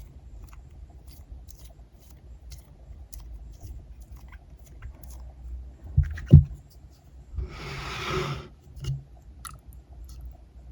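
Hands handling and squeezing soft squishy toys: small clicks, rubbing and scraping, two low thumps about six seconds in, then a rustling hiss lasting about a second and one more thump.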